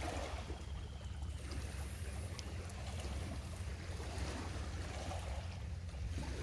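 Wind buffeting the microphone in a steady low rumble, over the even hiss of sea surf.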